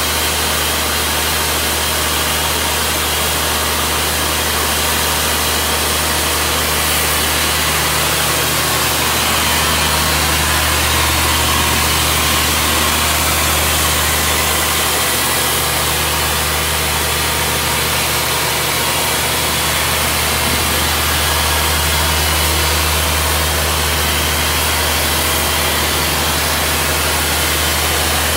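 1994 Ingersoll-Rand T3W truck-mounted water-well drill rig running steadily on a test run: a deep, even engine drone under a loud hiss, swelling slightly about halfway through.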